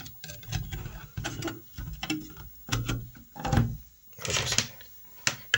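A plug-and-play ISA sound card being handled and pushed into an ISA edge-connector slot: a run of irregular scrapes, clicks and knocks, with a sharp click near the end.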